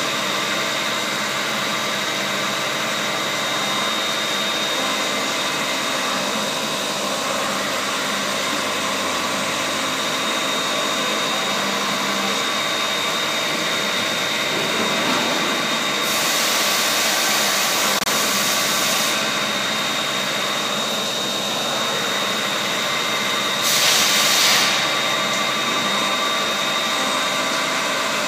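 CNC milling machine cutting herringbone gear teeth on a rotary fourth axis, with coolant running over the part. It makes a steady machine noise with a thin high whine, and gets briefly louder and hissier twice: for about three seconds past the halfway point and for about a second later on.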